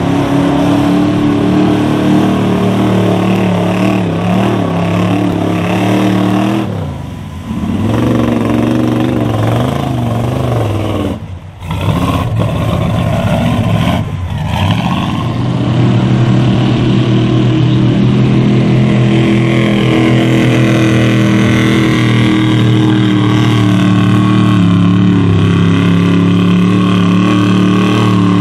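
A small pickup mud truck's engine revving hard as it plows through deep mud. The revs drop briefly twice, about 7 and 11 seconds in, then hold steady and high for the rest.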